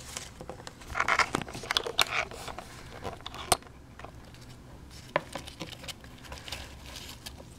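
Paper towel rustling and crinkling under fingers in a plastic tub, with scattered light taps and clicks; a busy patch of rustling about a second in and single sharp clicks later on.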